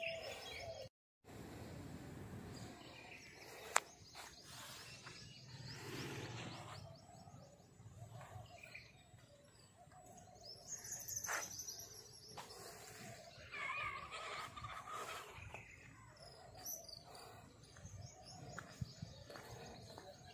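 Faint outdoor background noise with birds chirping now and then, and a single sharp click about four seconds in.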